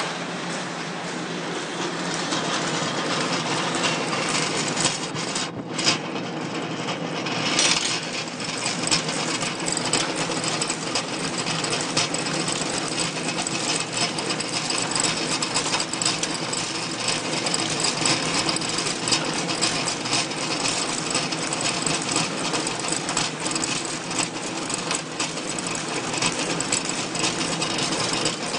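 Automatic plastic card packaging machine running: a steady, dense mechanical clatter of rapid ticks and rattles.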